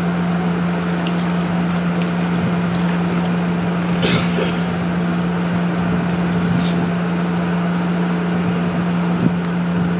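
Steady low motor hum over the wash of water around a crowd of nurse sharks in the shallows, with one short sharp splash about four seconds in.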